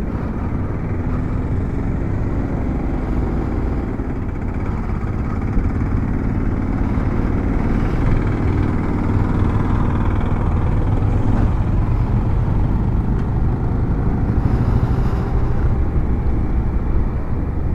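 Motorcycle engine running on the move, under a steady rumble of wind and road noise.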